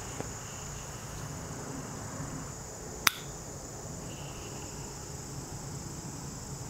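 A single sharp metallic click about three seconds in. It is the hammer of a North American Arms 22S mini-revolver falling on a .22 short cartridge that fails to fire, a misfire from a light primer strike. Insects drone steadily in the background.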